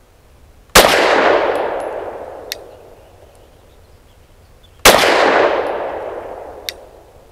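Two shots from a Lone Wolf Arms Dusk 19 9mm pistol, about four seconds apart, each with a long echoing decay. It is firing 65-grain ARX Inceptor, a very light load, and cycling without trouble. A short sharp tick follows each shot nearly two seconds later.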